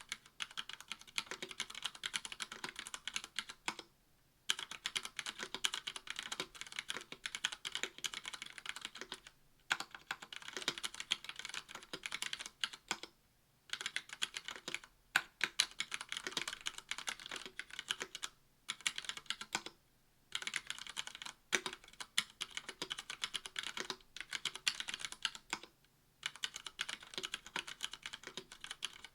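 Fast typing on a mechanical keyboard with Cherry MX Red linear switches in a brass plate under GMK keycaps: dense runs of key clacks broken by brief pauses every few seconds.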